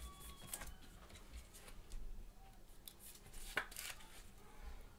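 Baseball trading cards handled by gloved hands: faint rustling with a few light clicks, the sharpest about three and a half seconds in.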